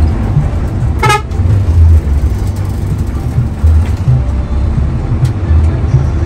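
Low rumble of a Hino AK8 bus's diesel engine and road noise, heard from inside the moving bus. A short horn toot sounds about a second in.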